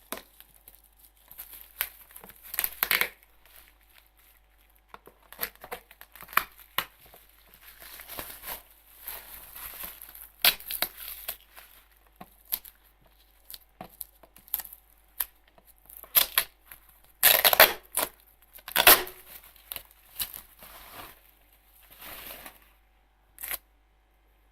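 Headphone packaging being opened by hand: irregular tearing and crinkling, with the loudest rips about two thirds of the way through.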